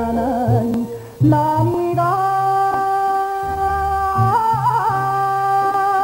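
Enka song: a vocal melody line with vibrato breaks off briefly about a second in, then holds one long note, stepping up once and turning a short ornament partway through, over a steady bass accompaniment.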